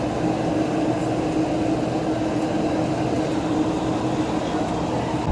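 Steady machine hum with a constant low drone, even and unbroken.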